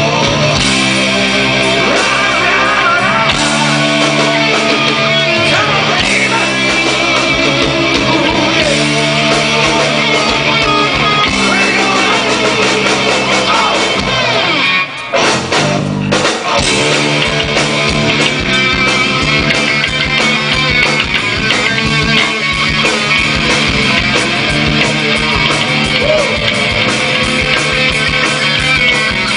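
Live rock band with electric guitars playing loudly, with a brief break about halfway through before the band comes back in.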